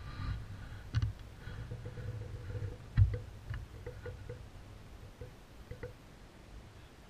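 Low thumps and small clicks of a bow-mounted camera being handled, the loudest bump about three seconds in, with lighter ticks scattered through.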